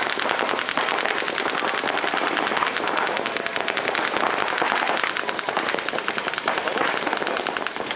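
Paintball markers firing in rapid, continuous streams from several players at once, a dense rattle of many shots a second with no break.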